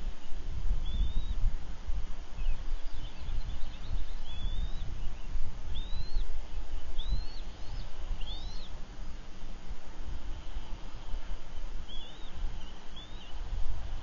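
Short, high, arched bird chirps, one every second or few, over a steady low rumble.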